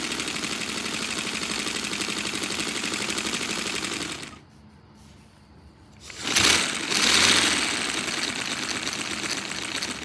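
A paper four-cylinder radial air-engine model running on breath blown through a tube, with a fast, even clatter. It stops about four seconds in and starts again about two seconds later with a loud rush of air, then clatters on.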